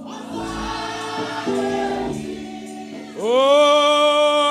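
Gospel worship singing over held backing chords. About three seconds in, a voice swoops up into a long held note, the loudest part.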